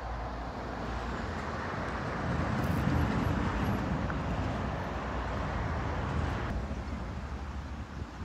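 Steady outdoor background noise: a low rumble under a hiss, swelling a little in the middle, with no distinct events.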